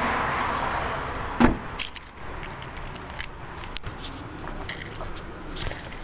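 A car door shuts with a thump about a second and a half in, then a bunch of keys jangles in short, bright jingles as the person walks off.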